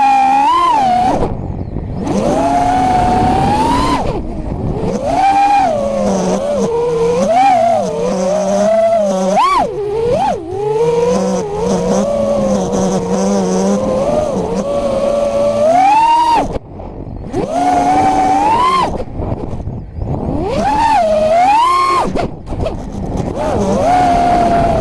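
FPV quadcopter's brushless motors whining, the pitch rising and falling constantly with throttle, with several brief sudden drops where the throttle is cut.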